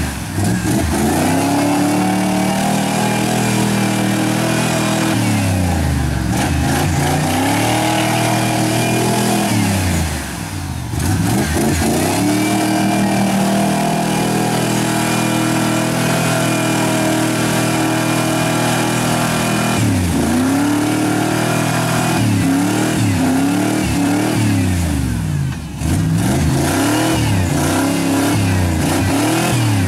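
Ford crew-cab pickup's engine revving hard while its tyres spin in deep mud, the truck bogged down and trying to push through. It holds high revs, drops off briefly about ten seconds in, climbs and holds again, then gives a run of quick revs up and down in the last third.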